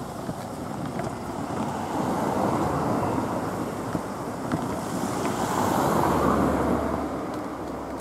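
Cars driving over a railway level crossing close by, their tyre and engine noise rising and falling. The noise swells twice: about two to three seconds in, and again around six seconds, when a low engine hum joins it.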